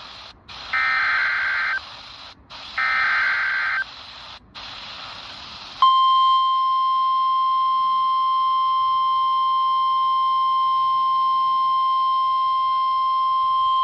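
NOAA Weather Radio alert heard through a weather radio over static hiss. Two short bursts of the SAME digital header warble, then a few seconds in the steady 1050 Hz warning alarm tone starts and holds loud. This sequence signals that a warning, here a severe thunderstorm warning, is about to be read.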